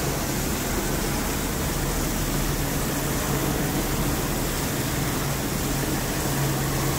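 Steady city background noise: a constant low hum under an even hiss, with no distinct events.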